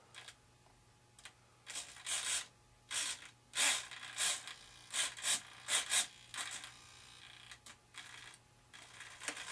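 Small RC servo whirring in short bursts, about a dozen in quick succession, as a servo tester swings the model's elevator back and forth; fainter clicks and handling follow.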